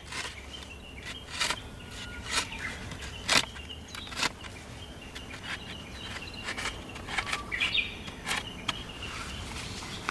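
Outdoor ambience of chirping insects and birds, with scattered short, sharp clicks throughout.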